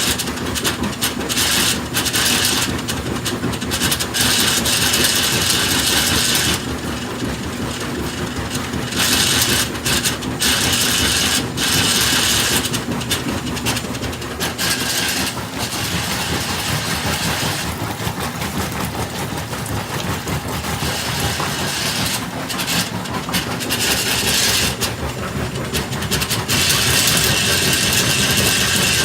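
GE WWRE5240D1WW top-load washer making a metal grinding noise as the agitator shaft turns while the transmission body stays still. The grinding swells and fades in spells of one to two seconds over a steady lower running rumble. Its cause is not yet found: the agitator coupler splines, belt and pulleys look sound.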